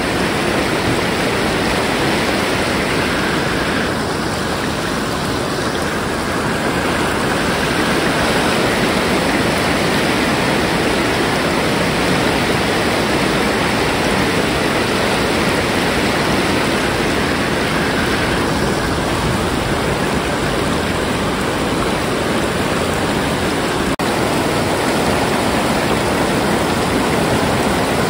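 River water of the Nagara River rushing steadily, a continuous loud wash of moving water.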